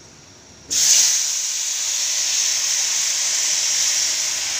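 Water poured into semolina roasted in hot oil in a frying pan, sizzling loudly as it hits the hot fat and flashes to steam. It starts suddenly about a second in and keeps going steadily.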